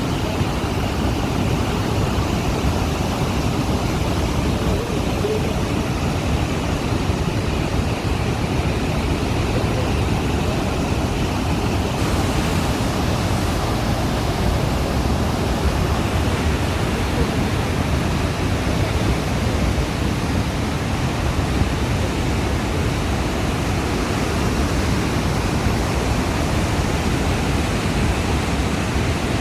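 The Rhine Falls, a large river waterfall, pouring: a steady, loud rush of water.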